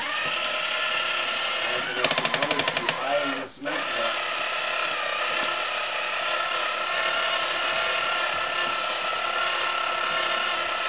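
Toy cement truck running, a steady mechanical whirring drone that starts suddenly, with about a second of rapid rattling clatter about two seconds in and a brief break just after.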